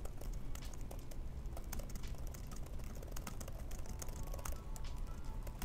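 Fast typing on a Dell XPS 13 (9300) laptop keyboard: a quick, uneven run of key clicks, with background music.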